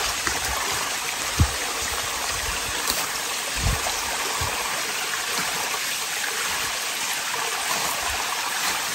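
A small rocky stream running with a steady rush of water, with a few soft low thumps in the first half.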